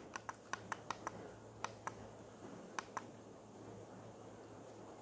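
Push buttons on a W3230 digital temperature controller clicking as they are pressed to step through its parameter menu: about ten quick, sharp clicks, several in close pairs, in the first three seconds, over a faint steady hum.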